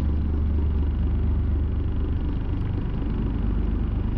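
A fishing boat's engine running steadily: an even, low hum.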